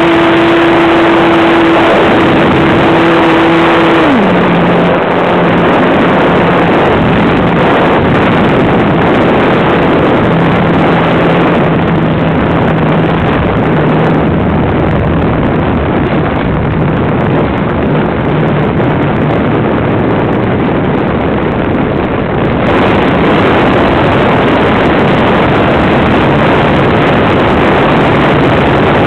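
Onboard sound of a Hobbico Superstar .40 trainer RC plane's engine: a steady high buzz that drops sharply to a low throttle setting about four seconds in, throttled back for the descent and landing. A loud rush of air over the onboard microphone runs beneath it.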